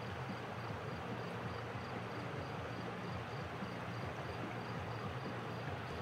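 Steady rush of river water running over rapids, with a faint high insect chirp repeating about four times a second.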